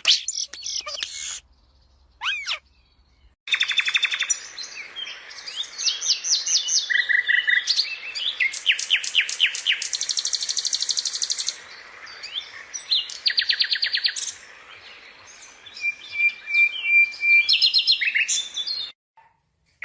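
Birds singing and calling: a single short chirp, then from about three seconds in a long run of varied songs, with rapid trills, fast strings of repeated high notes and rising and falling whistled phrases, over a faint steady hiss. It stops shortly before the end.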